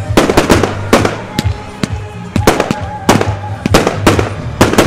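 Zena 144-shot, 25 mm compound firework cake firing: a quick, uneven series of sharp bangs, about three a second, as shots launch and burst.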